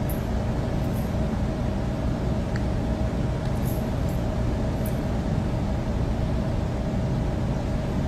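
Steady low background hum and rumble, with a faint constant tone running through it and a few faint ticks; no speech.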